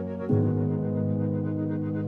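Slow ambient keyboard music: sustained synthesizer chords, with a new chord struck about a third of a second in and held.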